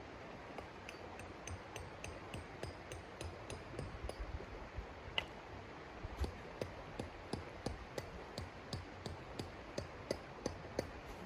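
A steady run of short, light knocks, about three a second, over a background hiss; the knocks get stronger from about halfway through.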